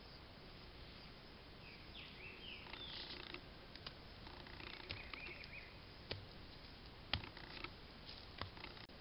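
Faint soft pats and taps of wet clay being torn off and pressed by hand onto a stone, with the sharpest tap about seven seconds in. A few short bird chirps sound in the first half.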